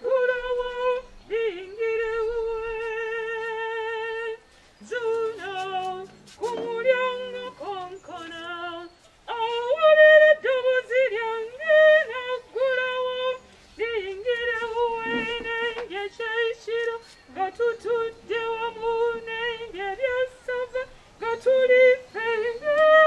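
A woman singing a slow hymn solo, holding long notes with a wavering vibrato between short breaths.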